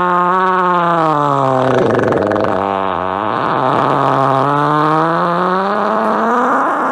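One long, drawn-out fart with a buzzing pitch. It sinks lower about two to three seconds in, sputters briefly, then climbs back up.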